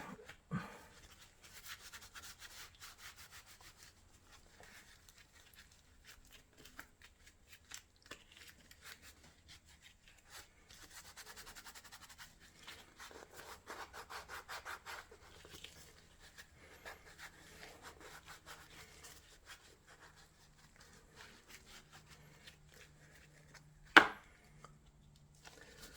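Grimy air filter box being wiped out by hand: faint, uneven rubbing and scrubbing that comes and goes, strongest about halfway through, with one sharp knock near the end.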